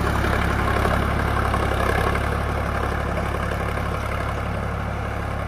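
Sonalika DI 745 tractor's diesel engine running steadily under load as it pulls a disc plough through the soil, the sound easing slightly as the tractor moves away.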